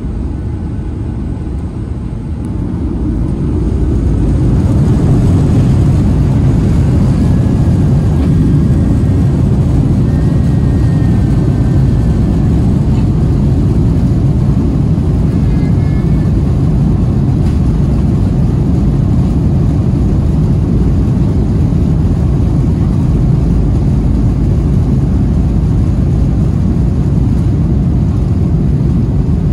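Boeing 737-800 jet engines heard from inside the cabin, spooling up to takeoff thrust about three seconds in, then a steady loud rumble as the airliner rolls down the runway for takeoff.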